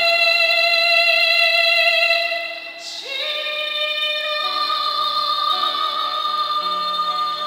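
A woman singing a Korean worship song into a microphone over instrumental accompaniment. She holds a long note that fades out about two seconds in, then takes up a new long, high note about a second later while the chords underneath change.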